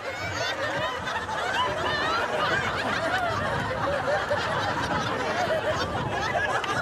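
A large audience laughing together, many voices overlapping in a steady wash of laughter.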